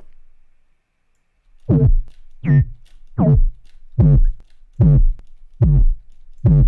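Software synthesizer patch playing a repeated short, gritty 'whoop' note, about one every 0.8 s, each note bending in pitch over a deep bass. The notes start after about a second and a half of silence. The grit comes from FM warp driven by a second oscillator set an octave up.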